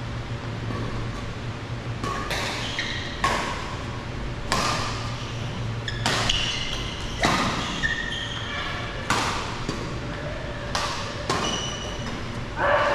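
Badminton rally: rackets hitting a shuttlecock about nine times, each a sudden sharp hit, one every one to two seconds. Short high squeaks come between some of the hits.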